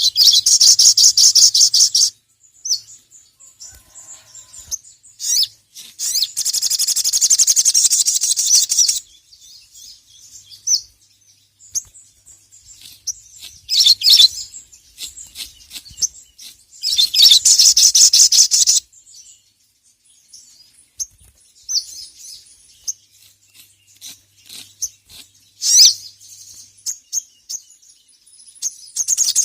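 A sogon (sogok ontong, a spiderhunter) calling in rapid, high-pitched chattering trills that each last about two to three seconds, three times, with shorter sharp calls and scattered chirps between them.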